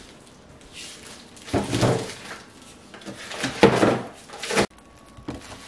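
Plastic bags and vacuum-packed meat rustling and crinkling as they are handled and set into a plastic cooler box. The sound comes in two spells; the second ends suddenly.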